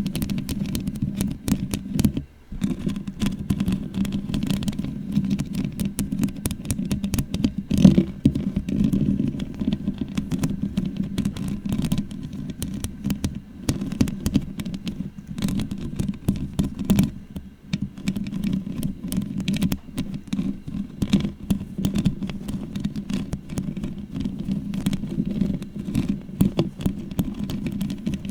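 Long fingernails scratching and rubbing right on a microphone: a dense, fast run of scratches and clicks over a low rumble, with a brief pause about two seconds in.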